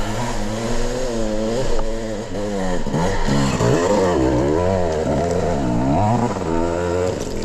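Dirt bike engine revving up and down repeatedly as the throttle is worked, the pitch rising and falling about once a second.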